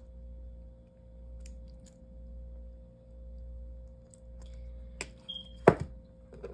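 Steady low hum, then near the end a click, one sharp knock and a few lighter clicks as metal-framed eyeglasses are handled and picked up off a table.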